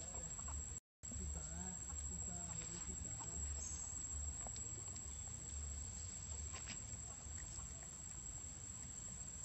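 Outdoor ambience: a steady high insect drone over a low rumble, with a few faint bending animal calls in the first couple of seconds and some faint ticks. The sound cuts out completely for a moment just under a second in.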